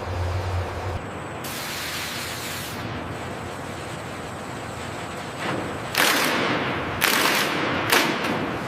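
Steady machinery noise with a low hum that stops about a second in, then a hiss about a second and a half in. Near the end come three loud, sudden bursts of hissing about a second apart, each fading away.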